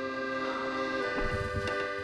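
Background music of sustained held chords, changing chord about a second in, with soft low knocks in the second half.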